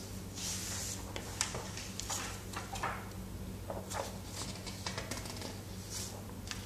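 Soft, irregular rustling and scratching noises, several a second, from paper and hands being moved about at a desk, over a steady low electrical hum.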